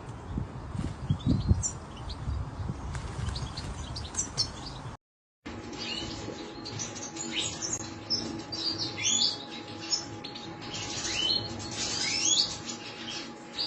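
A group of European goldfinches twittering, with many quick, high chirps overlapping. The sound cuts out briefly about five seconds in, then resumes with denser chirping over a faint steady hum.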